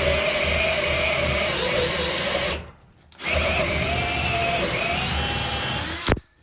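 Power drill boring a starter hole through cement backer board, its motor whine wavering as it bites. It stops briefly about two and a half seconds in, starts again, and stops with a click near the end.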